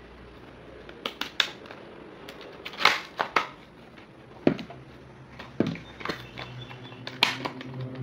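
Stiff plastic blister packaging and its cardboard backing crackling and snapping in irregular sharp bursts as they are handled and pulled apart. A low steady hum comes up in the background near the end.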